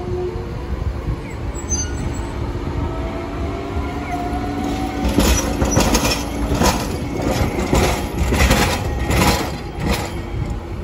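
Electric streetcar pulling away and passing close by: a faint whine rises in pitch as it gathers speed, then from about halfway its wheels clack repeatedly over the rail joints and crossings of a track junction.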